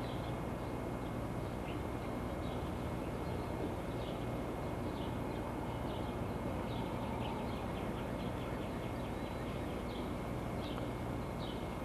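Birds chirping, short scattered calls with a quick trill in the middle, over a steady background hiss and low hum.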